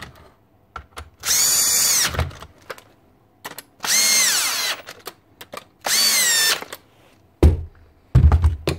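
Paslode IM350/90 gas nailer's battery fan motor whirring up three times for just under a second each as the gun is cycled, with no combustion bang: it is not firing, which the repairer traces to too little gas reaching it through a leaking stem adapter. Two low knocks follow near the end.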